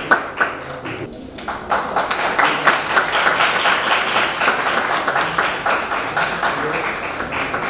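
Audience applauding: a dense patter of many hands clapping, which dips briefly about a second in and then swells.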